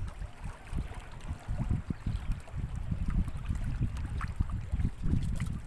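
Water trickling and lapping around a small wooden boat as a wet fishing net is hauled in hand over hand, over an uneven low rumble.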